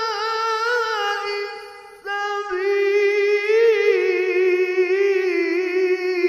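A male reciter's voice in melodic Quran recitation (tajweed), drawing out long ornamented notes with a wavering vibrato. The first held phrase fades about two seconds in, and after a short breath a second long phrase starts and carries on to the end.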